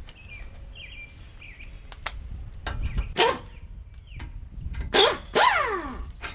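Cordless impact wrench with an 11/16-inch socket run in short bursts to loosen the front brake caliper guide-pin bolts, about three seconds in and again around five seconds in; the last burst winds down with a falling pitch as the trigger is let go.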